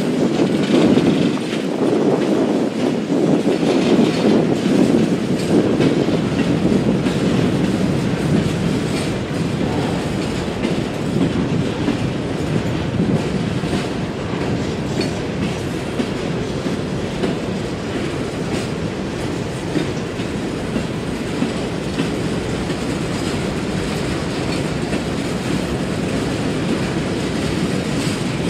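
Empty coal hopper cars of a CSX freight rolling past: a steady low rumble of steel wheels on rail, a little louder in the first several seconds.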